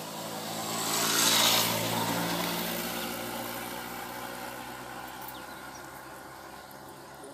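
A motor vehicle driving past: its engine swells to its loudest about a second and a half in, then slowly fades away.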